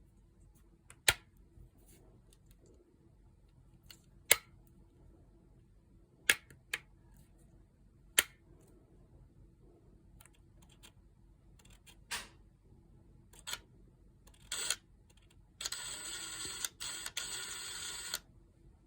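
A few sharp clicks, then the Makita TD170D impact driver's motor runs for about two and a half seconds with a steady high whine, cutting out briefly twice. The dropouts fit the poor contact in the trigger switch that the tool is being repaired for.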